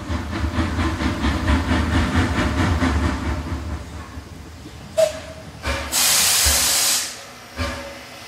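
Steam locomotive running with a rapid rhythmic chuffing that fades after about three seconds, then a sharp clank and a loud hiss of released steam lasting about a second, followed by another knock.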